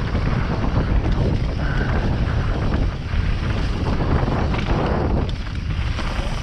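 Wind rushing over the microphone of a mountain biker's head-mounted camera as the bike rolls fast down a dirt and grass trail. The rush eases near the end as the bike slows.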